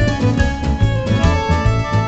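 Background music: an instrumental track with plucked and bowed strings over a steady bass beat.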